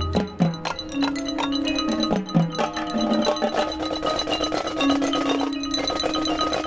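Marching band front ensemble's mallet percussion, marimbas and glockenspiel, playing quick runs of struck notes over a few held lower tones.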